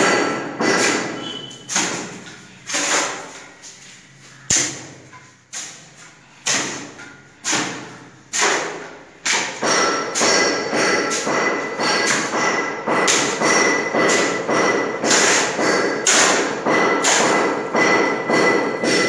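Short-handled hoe with a metal blade chopping into and turning a pile of dry sand and cement on a concrete floor: repeated thuds and scrapes of the blade, spaced out for the first few seconds, then coming about once a second or faster.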